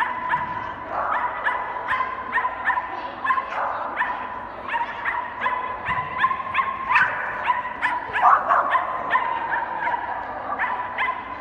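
A dog barking over and over, about three sharp barks a second, while racing through an agility course.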